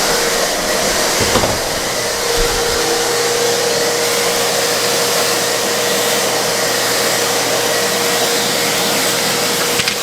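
Contractor shop vac running at full speed: a steady motor whine over rushing air, with a couple of brief knocks about one and two seconds in.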